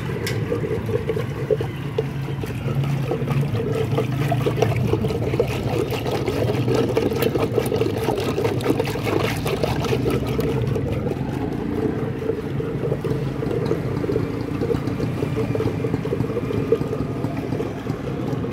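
Wooden hand churner spun back and forth between the palms in a steel pot of sattu drink, churning the liquid with a rapid, steady sloshing.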